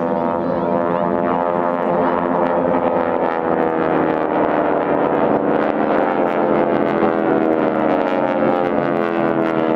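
Radial engines of a formation of North American T-6 Texan aerobatic planes droning overhead, a rich, steady engine note whose pitch slides slowly as the planes move across the sky.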